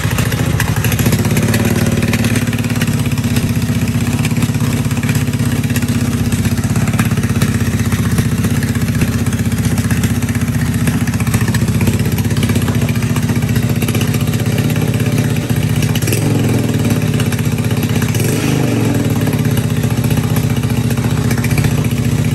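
Icebear Maddog Gen V scooter engine running steadily, fed by a newly installed electric fuel pump that replaces the factory vacuum pump.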